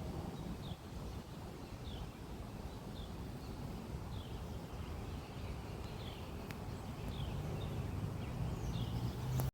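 Wind rumbling on the microphone while a bird calls over and over, short high notes that fall in pitch, about one a second.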